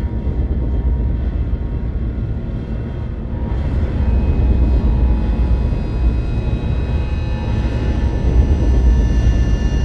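Dark horror ambient drone: a deep, steady rumble under faint sustained high tones, swelling louder and brighter about four seconds in.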